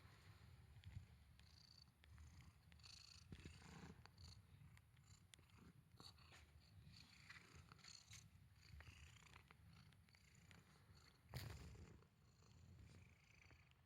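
Pet cat purring softly, a continuous low pulsing rumble, with a brief louder rustle or bump about eleven seconds in.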